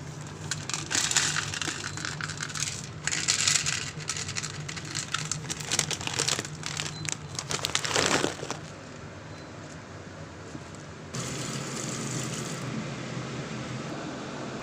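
Plastic cat-food bag crinkling as dry kibble is shaken out of it and rattles into a plastic bowl, in several crackly bursts over the first eight seconds or so. After a short lull a steady hiss starts about eleven seconds in.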